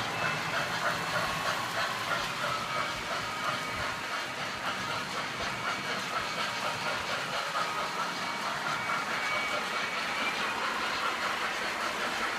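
MTH and Lionel model trains running on the layout track: a steady rolling noise with quick small clicks of wheels over the rails and a faint, steady whine.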